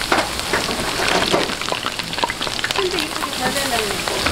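Battered food deep-frying in a large vat of hot oil: a steady, dense sizzle with many small crackling pops.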